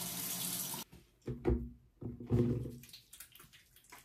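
Bathroom sink tap running in a steady stream, shut off abruptly about a second in. Then two short wet squelches, followed by the faint crackle of wet, soapy hands rubbing together.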